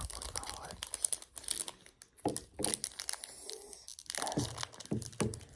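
Foil Pokémon booster-pack wrapper being crinkled and torn open by hand, an irregular run of crackles as the pack resists opening.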